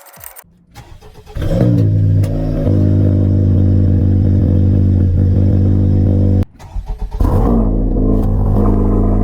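2024 Acura Integra Type S's turbocharged 2.0-litre four-cylinder, fitted with an MBRP Armor Pro exhaust, starting about a second and a half in with a brief flare, then idling steadily. The sound breaks off suddenly around two-thirds of the way in, comes back with a short rise in revs, and settles again.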